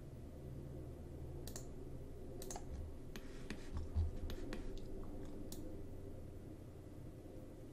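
Scattered clicks of a computer mouse and keyboard, bunched together from about three to five seconds in, with a dull low thump about four seconds in, over a steady low hum.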